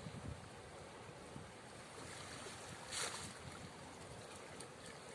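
Faint sloshing of shallow river water around a person wading and gathering a wet cast net, with one short, louder burst of noise about three seconds in.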